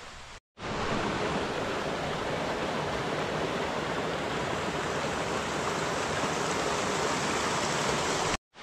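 A waterfall rushing: a steady, even noise of falling water that starts abruptly about half a second in and stops abruptly just before the end.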